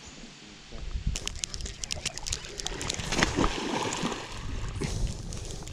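Water splashing and sloshing around a hooked fish fighting on a fly line. A quick run of sharp clicks comes about a second in, and the splashing grows denser near the middle.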